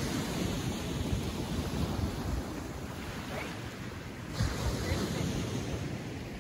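Ocean surf breaking on a gravel beach, a steady wash of waves, with wind buffeting the microphone.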